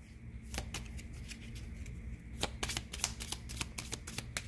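A deck of cards being shuffled by hand, a run of quick, irregular clicks and flicks.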